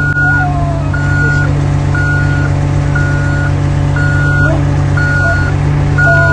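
A heavy machine's backup alarm beeping steadily, one half-second beep about every second, over the constant drone of its engine running.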